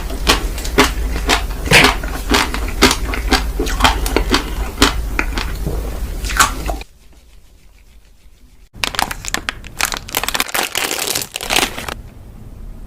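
Close-miked ASMR eating sounds: crunchy bites and crackles of ice cream being eaten. The crunching breaks off for about two seconds around the middle, then starts again in a denser run.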